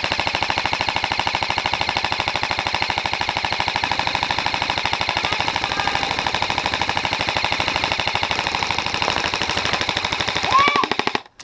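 Airsoft electric gun firing on full auto in one long, steady, rapid burst that stops abruptly near the end. The magazine runs dry and the shooter has to reload.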